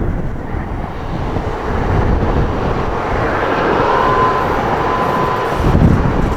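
A train passing close at speed: a steady rushing noise of wheels and air, with a brief thin tone about four seconds in and heavier low rumble near the end.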